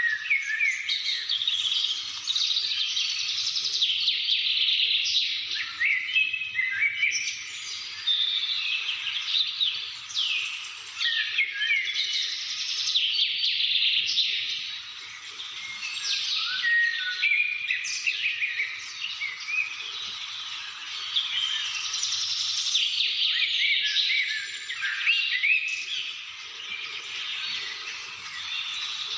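A dense chorus of many birds chirping and singing over one another without a break, full of quick rising and falling high-pitched notes.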